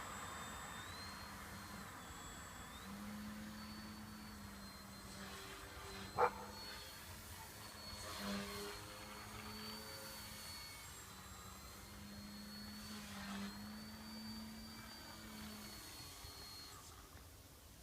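Small electric RC airplane's brushless motor and propeller whining in flight, the pitch of the whine stepping up and down with the throttle. There is one short sharp sound about six seconds in.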